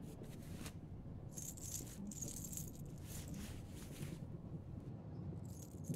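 Metal armor fittings jingling and clinking as armor is taken off, in a run of rattles lasting about three seconds, then one more brief jingle near the end.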